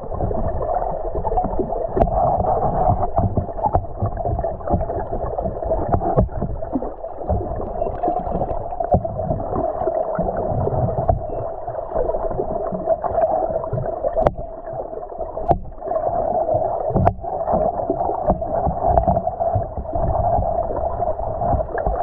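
Steady, muffled hum and rumble of a small boat moving on the lake, with a few sharp knocks.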